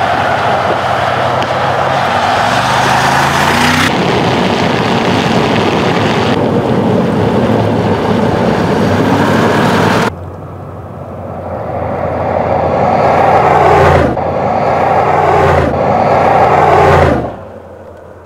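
Mercedes-AMG G 63's 4.0-litre twin-turbo V8 running and accelerating, its note rising and falling across several abrupt cuts. Partway through it drops back, then builds up twice before fading away near the end.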